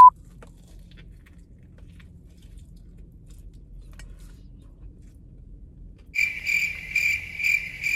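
Faint chewing of a bite of sandwich, then from about six seconds in a cricket chirping sound effect, a steady pulsing chirp about three times a second, the comic 'crickets' cue for an awkward, underwhelmed pause.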